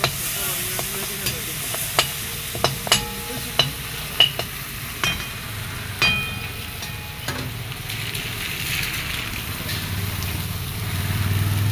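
A perforated metal spatula stirring and scraping in an iron kadhai, knocking against the pan in about ten sharp metallic clinks over the first seven seconds, some of them ringing. Under it the onion, peanut and green chilli mixture sizzles in the oil, the stage before the soaked poha goes in.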